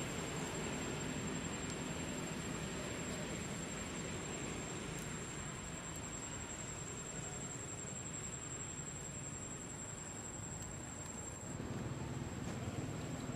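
Steady outdoor background hiss with a thin, constant high-pitched whine running through it. The background turns slightly louder and fuller near the end.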